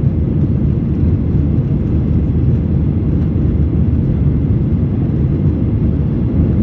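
Airbus A321neo jet engines at takeoff, a steady low rumble without a break.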